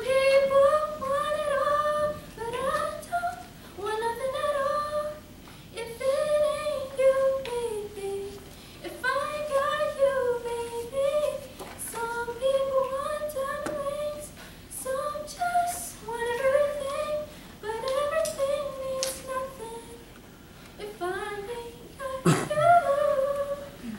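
A teenage girl singing solo a cappella, with no accompaniment, in a series of sung phrases separated by short breaths.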